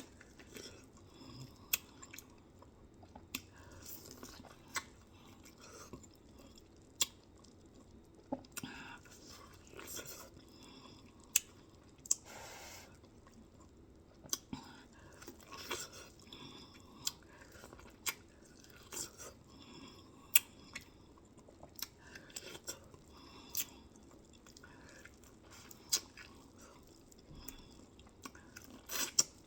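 Close-up eating sounds: chewing with irregular crunches and wet mouth clicks, some much louder than others.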